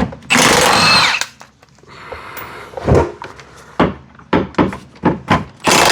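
Tools and metal parts clanking and knocking under a car while its differential bolts and brace are removed: a loud, noisy burst lasting under a second near the start, then a string of separate sharp knocks in the second half.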